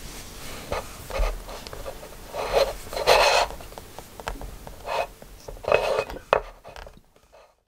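Metal toothpaste tube scraping and crinkling in the slot of a ceramic key-wind toothpaste squeezer as it is handled, in several short rasping bursts with a few clicks. It fades out about seven seconds in.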